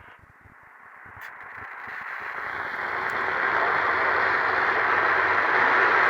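Static hiss from a radio receiver between alert messages, swelling over the first few seconds and then holding steady.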